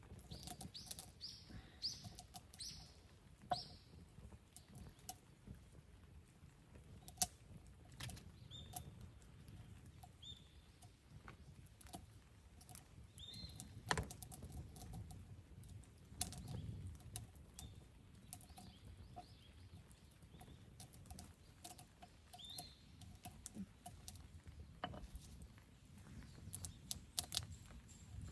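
Wood campfire burning: scattered crackles and sharp pops over a low, faint rumble of the flames, with a few short high chirps, most of them in the first few seconds.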